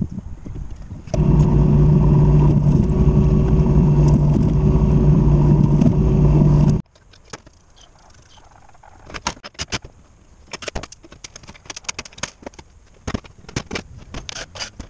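A motor runs loudly and steadily at one pitch for about six seconds, then cuts off abruptly. After it come light clinks and taps of metal plates being handled on a steel workbench.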